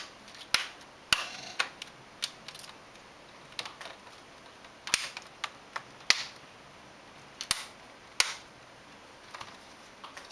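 Plastic LCD bezel clips on a laptop lid snapping into place one after another as the bezel is pressed around the screen's edge: about a dozen sharp, irregular clicks.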